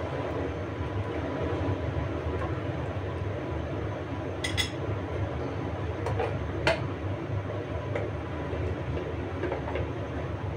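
Steady low rumbling kitchen background noise, with a few light clicks of a utensil against the pan about four and a half seconds in and twice more between six and seven seconds.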